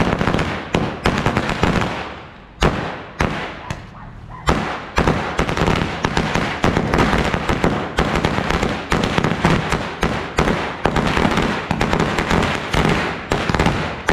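Firecrackers going off. There are several separate sharp bangs in the first few seconds, then from about four and a half seconds in a dense, unbroken rattle of rapid bangs.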